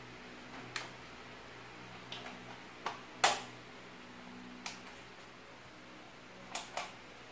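Electrical plugs being pushed into a power strip and the cords handled: a handful of sharp plastic clicks and taps, one much louder about three seconds in, and a quick double click near the end.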